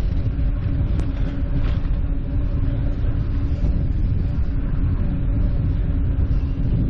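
Steady rumble of wind on the microphone with road noise from a touring bicycle being ridden, and a faint steady hum underneath.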